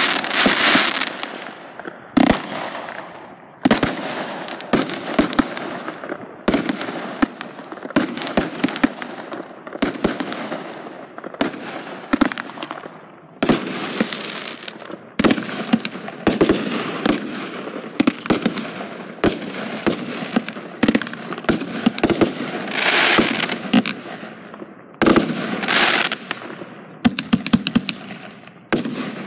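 Aerial fireworks going off in rapid succession: sharp bangs about every one to two seconds, each trailing off after the burst, with some quick clusters of several bangs close together.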